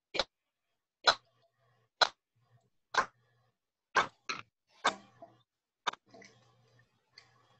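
A series of short, sharp clicks or taps, roughly one a second, with a faint low hum coming and going between them.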